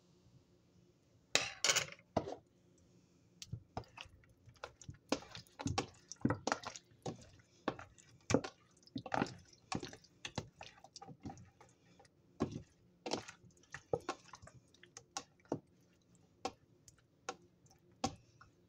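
Hands turning and rubbing raw chicken drumsticks in a wet marinade in a ceramic bowl: irregular wet squelches and slaps, some in quick clusters, with short pauses between.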